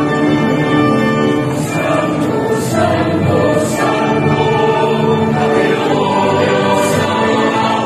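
Choir singing a slow hymn in long, held notes, with a few sung consonants now and then.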